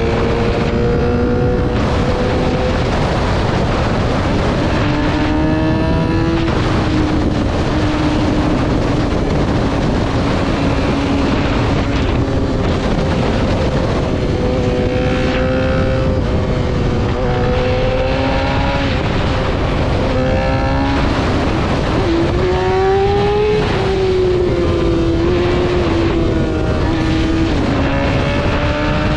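Yamaha R6 inline-four sport bike engine running at speed under heavy wind rush. Its pitch climbs and drops several times with throttle and gear changes.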